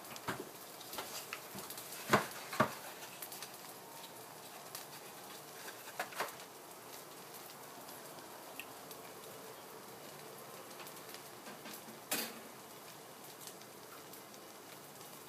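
Liverwurst slices frying in a pan, a faint steady crackle. A few sharp knocks and clicks break in, the loudest a pair about two seconds in and a single one about twelve seconds in.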